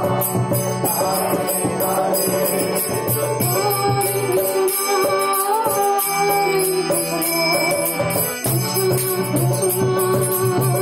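Kirtan: voices chanting a mantra over a sustained drone, with hand cymbals (karatalas) struck in a steady, quick rhythm. The low drone drops out for a few seconds in the middle and then comes back.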